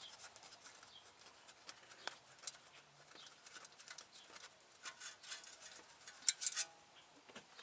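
Faint scattered clicks and ticks of an Allen wrench and small metal parts being worked by hand as a wheel speed sensor is unbolted from the front hub. A short cluster of louder, sharp clicks comes about six seconds in.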